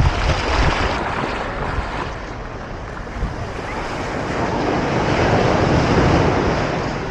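Ocean surf washing onto the beach, swelling louder about five seconds in, with wind buffeting the microphone near the start.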